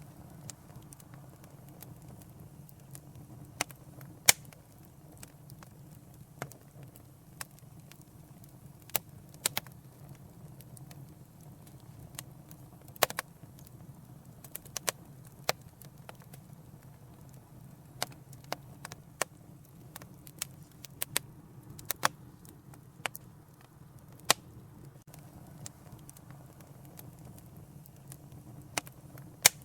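Fireplace fire crackling: irregular sharp pops and snaps, some much louder than others, over a steady low background of the burning fire.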